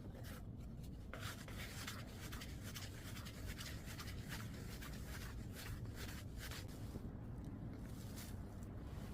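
Hands working soft bread dough on a work surface: a run of irregular rubbing and scraping strokes that stop shortly before the end.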